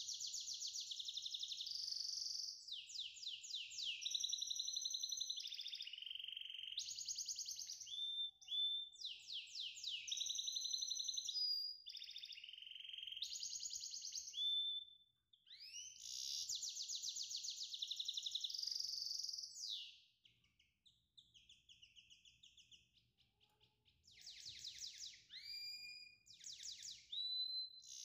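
Songbird singing: rapid high trills and whistled, sliding notes in phrases of a few seconds. The song breaks off briefly about halfway through and is fainter for a few seconds after about twenty seconds in, before it picks up again.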